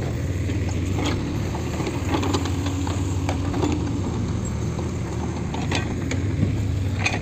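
Backhoe loader's diesel engine running steadily with a low drone, with a few short sharp knocks scattered through it.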